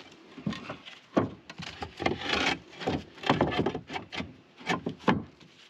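Reclaimed clay roof tiles being shifted and set into place: an irregular run of scrapes and knocks of tile against tile, some scrapes lasting about half a second.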